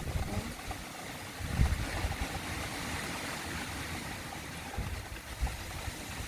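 Strong wind blowing and buffeting the microphone, with low rumbling gusts about a second and a half in and again near the end.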